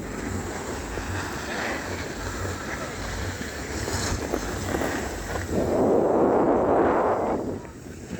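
Wind buffeting the microphone, a steady rushing noise that swells into a louder gust about five and a half seconds in, lasts about two seconds and then drops away.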